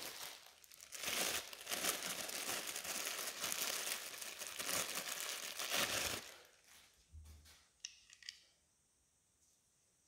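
Thin plastic bag crinkling and rustling as a charger is unwrapped by hand, for about six seconds. This is followed by a few light clicks as the cord is handled.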